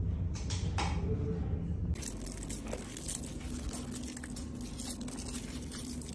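Rustling and handling noise close to a phone's microphone: a low hum for the first two seconds, then crackly rustling with scattered faint clicks.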